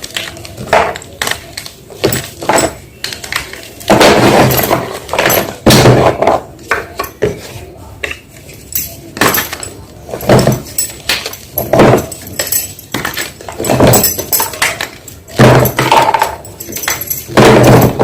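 Gym chalk being crushed: repeated loud, irregular crunching and crumbling, some crushes long and grinding, others short with a dull thud.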